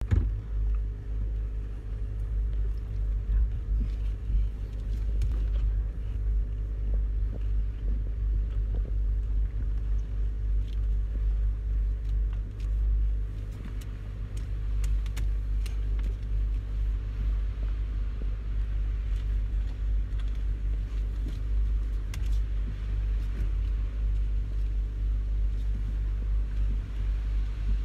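Range Rover running at low speed, heard from inside the cabin: a steady low rumble of engine and road noise with a constant hum over it and a few faint clicks.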